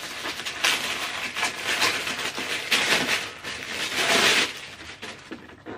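Clear plastic packaging bag crinkling and rustling in the hands as an item is unwrapped and pulled out of it. The crackle is loudest a little past the middle and dies away near the end.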